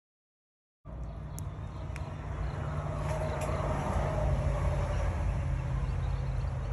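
Silence for about the first second, then a steady outdoor rumble and hiss at the water's edge, heavy in the low end, with a few faint clicks.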